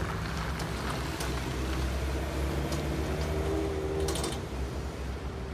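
2013 Ford F450 bucket truck's engine running as the truck drives away, a steady low rumble that eases off slightly near the end.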